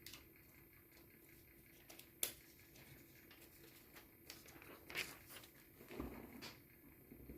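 Faint handling of phone-case packaging: plastic crinkling with a few sharp clicks and taps, the loudest about two seconds in and more of them near the end.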